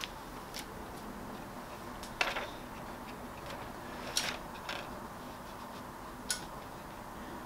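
A few light, sharp taps and rustles of a paper transfer sheet being handled and smoothed onto a heat press platen, at irregular moments, the loudest a little over two seconds in.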